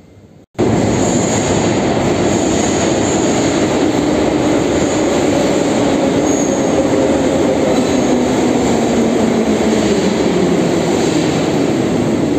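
Metro train of the 81-717/714 family running at speed: a loud, steady rumble of wheels and running gear with a hum that drifts slowly lower in pitch. It cuts in abruptly about half a second in.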